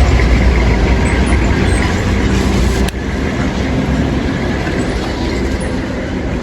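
Road traffic close by: a motor vehicle's engine rumble and tyre hiss, which drops off suddenly about three seconds in.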